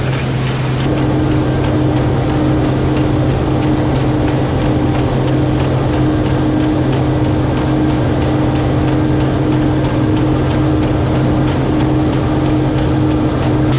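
A 1660 combine running steadily while harvesting soybeans: an even engine hum, with a fast, light ticking and a high hiss that set in about a second in.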